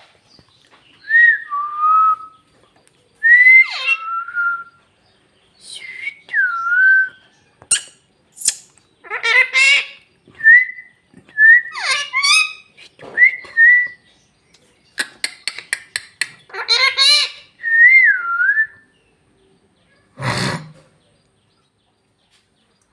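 Pet parrot whistling short gliding notes, with harsh, buzzy chattering bursts between them and a quick run of clicks in the middle.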